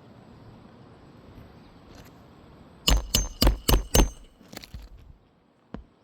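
Hammer driving a roofing nail through an asphalt shingle: about five quick blows with a metallic ring, roughly four a second, then a few lighter taps.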